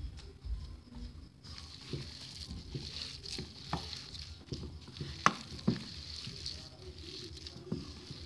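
Grated cauliflower, gram flour and spices being mixed and pressed together by hand in a steel bowl, with scattered light knocks of the hand against the bowl, the sharpest about five seconds in.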